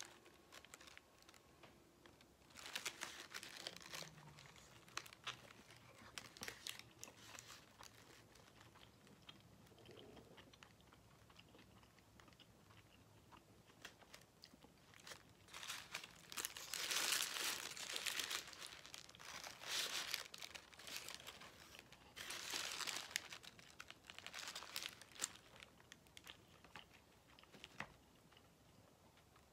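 Paper wrapper around a breakfast burrito crinkling as it is held and handled, in several bursts, with quiet chewing between them.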